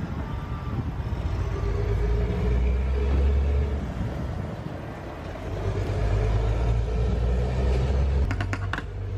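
Car on the move, its low engine and road rumble swelling and easing. A few sharp clicks near the end.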